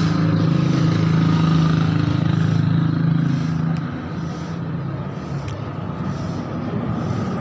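A motor vehicle engine running steadily with a low hum, which fades out about four seconds in and leaves a rougher background rumble of traffic.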